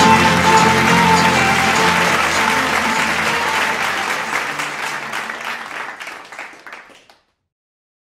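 Applause over closing music, both fading out steadily until they cut to silence about seven seconds in.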